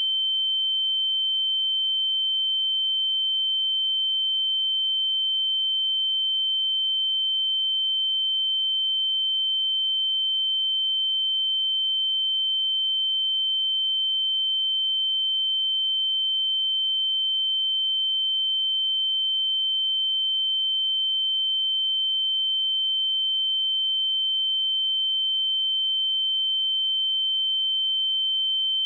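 A single pure sine-wave test tone at 3096 Hz, held steady at constant level.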